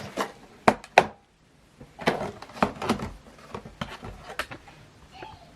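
Handling noise: a series of sharp clicks and knocks, as of hard plastic items being picked up and set down on a surface, with a busier patch of clicks and rustling about two seconds in.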